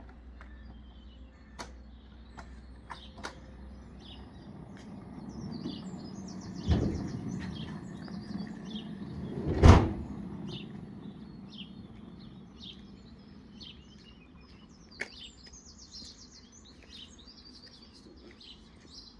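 Automatic sliding-gate motor running with a steady low hum as a hardwood sliding gate rolls shut, with two sharp knocks, the louder about ten seconds in. Birds chirp throughout.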